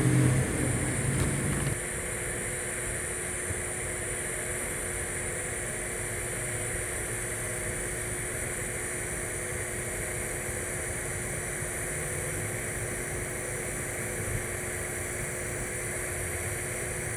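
TIG welding arc on a carbon steel pipe root pass at about 95 amps: a steady hiss with a constant hum under it.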